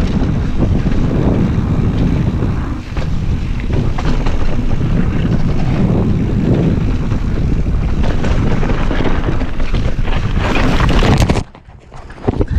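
Wind buffeting the microphone of a camera riding along on a fast downhill mountain bike run: a loud, steady low rumble that cuts off abruptly near the end.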